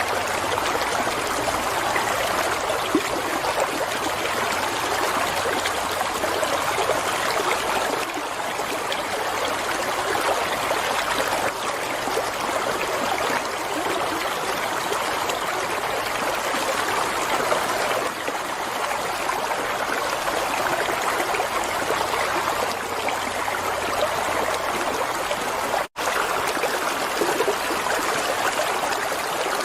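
Water flowing in a stream, a steady trickling and babbling flow. It drops out for an instant near the end.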